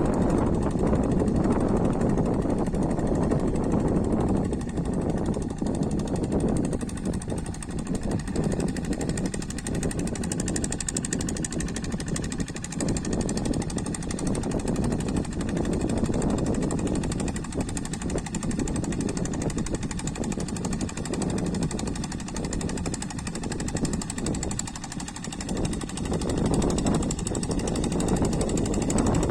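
Single-cylinder Kubota diesel engine of a walk-behind hand tractor, running under load with a rapid, steady knocking beat while levelling a wet rice paddy. The engine sound dips a little twice, about a fifth of the way in and again near the end.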